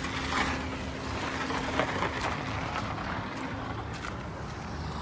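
Chevrolet Camaro engine cranking over and starting with a steady whine, now that the blown fuse behind its no-crank fault has been replaced.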